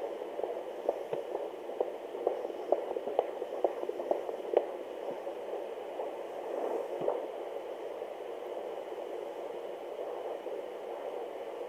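Fetal Doppler monitor at 24 weeks: a fast, rhythmic pulse of the baby's heartbeat, about two to three beats a second, in a wash of static. After about five seconds the beat fades and steady static hiss remains.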